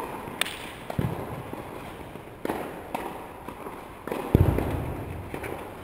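Tennis ball struck by racquets and bouncing during a doubles point: a series of sharp pops about one to two seconds apart, the loudest and deepest one about four seconds in.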